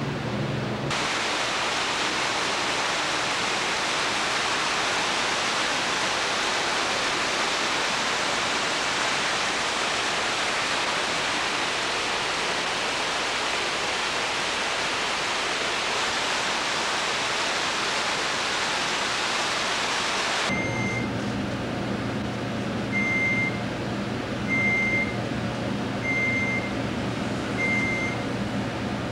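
A steady, even hiss that cuts off suddenly about two-thirds of the way through. It leaves a low hum and a short high beep repeating about every one and a half seconds.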